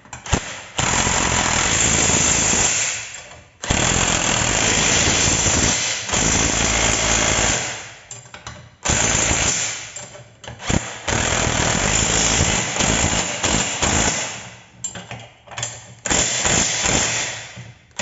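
Impact wrench running in a series of bursts of one to three seconds each with short pauses, tightening the bolts that hold a new ball joint to a Chevrolet Spin's front lower control arm.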